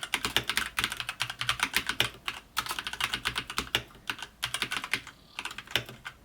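Fast typing on a Havit KB432L mechanical keyboard with Outemu Red linear switches: a rapid run of keystroke clacks, broken by short pauses about two seconds and five seconds in.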